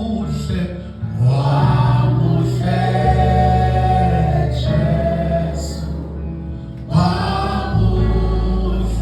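Gospel music with a choir singing over a steady bass.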